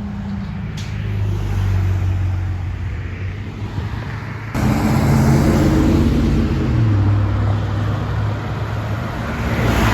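Heavy truck engines running past on the road, with a louder truck coming through about halfway, its engine note dropping a couple of seconds later.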